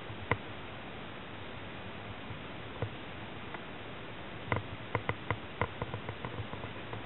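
Steady faint hiss with scattered small clicks and knocks, then a quick irregular run of them about four and a half seconds in.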